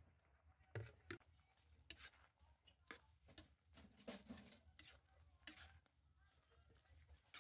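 Near silence broken by faint, scattered clicks and light taps.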